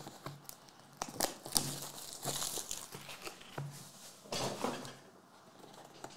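Plastic wrapping on a sealed trading card box crinkling and tearing as the box is unwrapped and opened, with small irregular clicks of the cardboard being handled. The crinkling is heaviest in two stretches, about a second and a half in and again past the middle.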